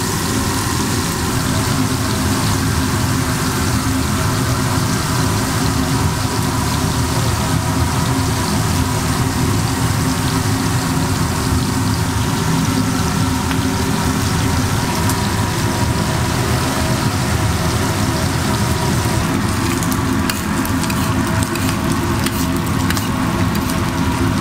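Bacon strips and beef burger patties sizzling on a flat-top griddle: a steady, dense frying hiss over a low hum, with sharper crackling near the end.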